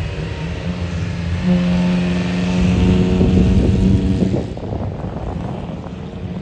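Vintage open-wheel racing car's engine running at steady revs as the car passes on a snow track, growing louder and then dropping away sharply about four seconds in as it heads off.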